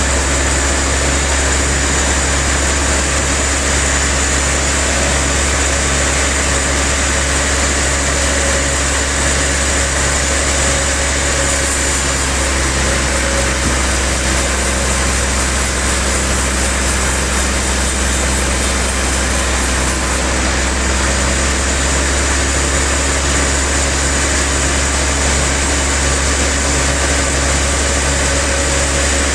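Sawmill machinery running with a steady, loud low drone and no breaks.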